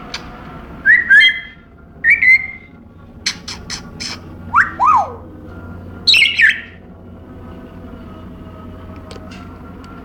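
African grey parrot calling: two short whistles, another whistle, a quick run of sharp clicks, then two whistles sliding down in pitch and a harsh, high squawk that falls away. The calling stops about seven seconds in.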